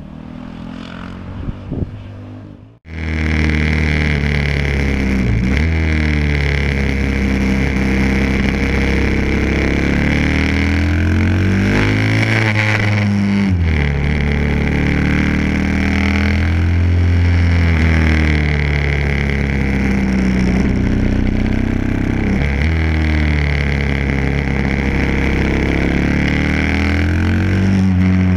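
Onboard sound of a KTM supermoto's single-cylinder four-stroke engine ridden hard: the engine note climbs and drops again and again as the rider accelerates, shifts and rolls off for corners. The first three seconds are a quieter roadside sound before the loud onboard engine cuts in.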